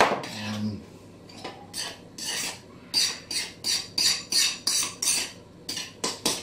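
A spoon scraping and clinking in a bowl as thick tomato-paste and Worcestershire topping is scooped out, in a quick run of short strokes, about three a second, that builds up halfway through. A knock right at the start.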